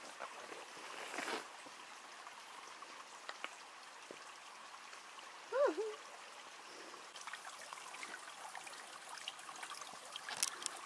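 A small mountain stream trickling over rocks, steady throughout. About halfway through comes one short voiced sound that rises and falls in pitch, and a few light clicks sound near the end.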